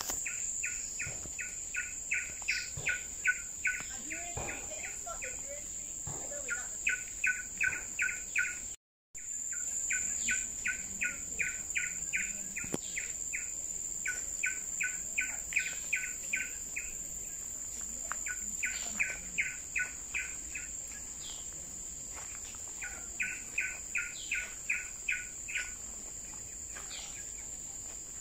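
A bird calling in about six fast runs of short, evenly repeated notes, roughly five a second, over a steady high insect whine of tropical forest. The sound cuts out for a moment about nine seconds in.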